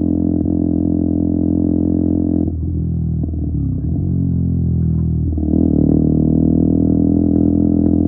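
KTM Duke 125's single-cylinder four-stroke engine through an Akrapovic exhaust with a GPR decat link pipe, running at steady throttle while riding. About two and a half seconds in, the note drops and wavers for a few seconds, as on a throttle lift or gear change, then comes back on steady and louder.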